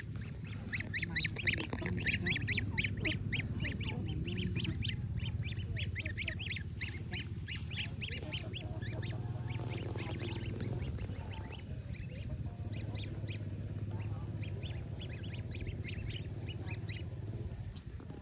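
Lionhead-cross goslings peeping in quick, high-pitched chirps, thick and continuous for the first half and sparser after, over a steady low rumble.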